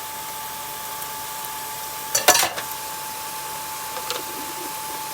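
Onions and peppers frying in a pan with a steady sizzle, and a short clatter of a utensil against a dish about two seconds in.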